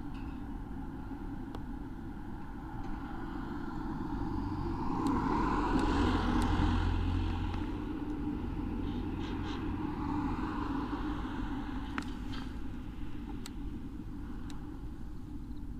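Outdoor background rumble with a motor vehicle passing, swelling to its loudest about six seconds in and then fading away.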